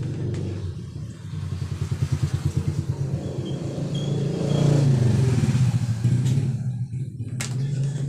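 An engine running, throbbing in quick pulses and then rising and falling in pitch, like a motor vehicle going by.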